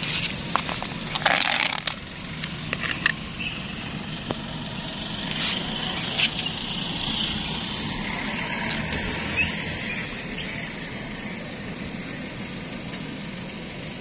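Street traffic noise that swells and fades as a vehicle goes by. Before it, in the first few seconds, come crackly clicks and rustling from dry cat kibble in a plastic tub.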